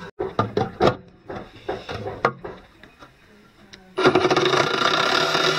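A few sharp knocks and clicks of handling, then about four seconds in a power drill starts abruptly and runs steadily, cutting through a metal enclosure with a hole saw to enlarge a 25 mm hole to 32 mm.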